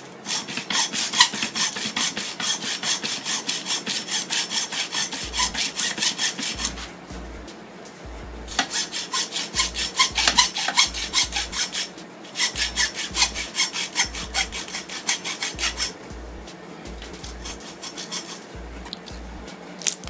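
Hand hacksaw cutting through the copper secondary winding of a microwave oven transformer clamped in a vise. Three spells of rapid back-and-forth strokes with two short pauses, then softer strokes over the last few seconds.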